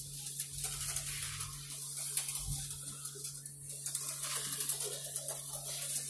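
HO-scale slot car running around its plastic track: a small electric motor whirring with light clicking and rattling, over a steady low hum.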